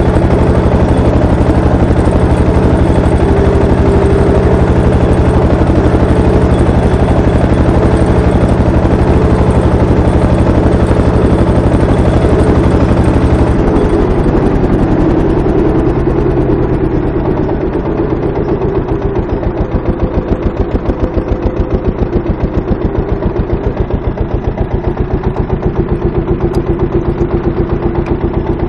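Deutz F1M414's single-cylinder diesel engine chugging steadily under the driver, heard from the seat. About halfway through the engine speed drops and the individual beats become slower and more distinct.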